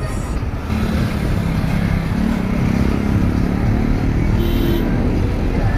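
Engine and road noise of a moving vehicle, heard from on board: a steady low engine drone over continuous rumble, a little louder from about a second in.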